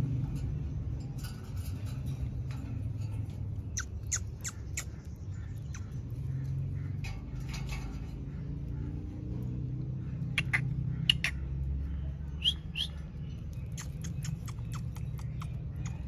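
Rose-ringed parakeet giving short, sharp chirps and squawks in scattered bursts: a quick cluster about four seconds in, and more around ten to thirteen seconds.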